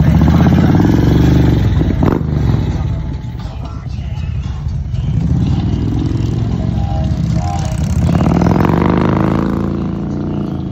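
Harley-Davidson bagger motorcycles' V-twin engines revving and riding past in three swells, each rising and then falling in pitch, the first the loudest.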